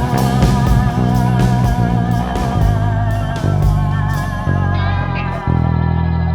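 Instrumental passage of a country-rock band: electric guitar holding wavering notes over bass and drums. The cymbal strokes stop about four seconds in, leaving guitar and bass.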